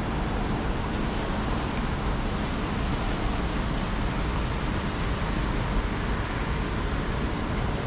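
Steady outdoor city noise: a continuous, even rush of road traffic with no distinct events standing out.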